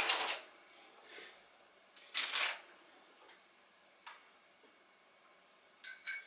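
Forged connecting rods being handled as they are unpacked. There is a short rustle about two seconds in and a faint click later, then near the end a sharp metal clink with a bright ringing tone.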